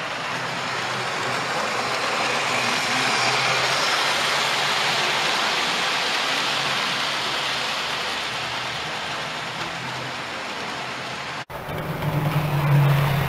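Model Warship class diesel locomotive and its coaches running on the layout track: a steady rolling running noise of motor and wheels on rail. Near the end it cuts out for an instant and comes back with a lower steady hum.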